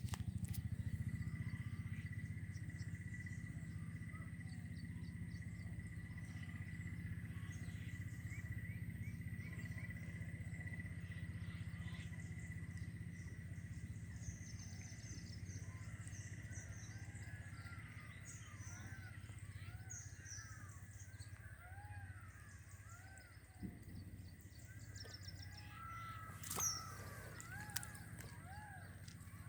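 Birds calling over a steady low rumble. From about halfway, many short arched chirps repeat, and two sharp clicks come near the end.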